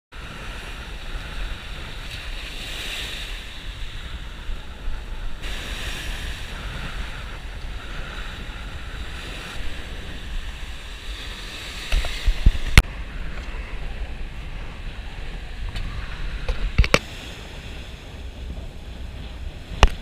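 Sea surf breaking and washing up a sandy shore, a steady rush of water with wind rumbling on the microphone. A few sharp knocks stand out, loudest about two-thirds of the way through.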